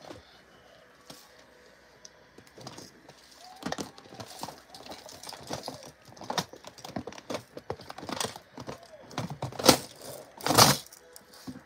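Small plastic containers and loose nail-art pieces being rummaged through and handled while rhinestone bling is fetched: a run of irregular clicks and rattles, with two louder clatters near the end.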